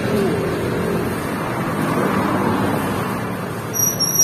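Road traffic passing along the street, a steady wash of engine and tyre noise, with a high, slightly rising squeal starting near the end.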